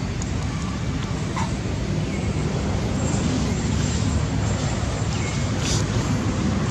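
Steady low rumbling background noise outdoors, with two short hissy bursts, one about a second and a half in and one near the end.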